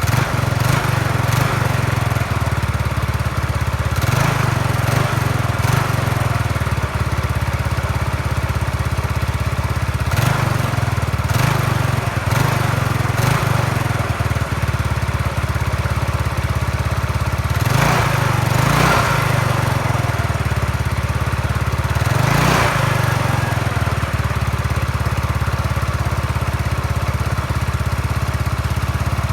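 Yamaha Mio Sporty scooter's small single-cylinder four-stroke engine running steadily, with several short surges every few seconds.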